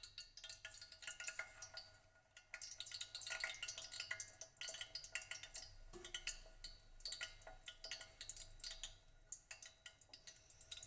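Chopsticks clicking and tapping against a stainless-steel tray and pot as raw chicken wings are lowered into oil that is not yet fully hot, with light irregular crackling. A steady faint hum runs underneath.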